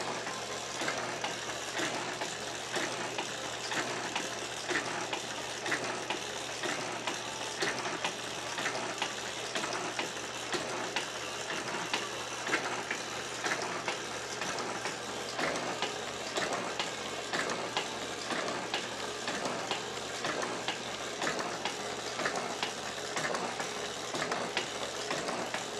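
Small FORD metal shaper running, its ram stroking back and forth over a brass workpiece held in the vise, with a steady mechanical running noise and regular clicks.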